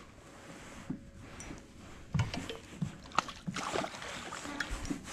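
Hooked bass splashing at the surface several times in the second half while it is fought on a light spinning rod, over faint wind and water noise.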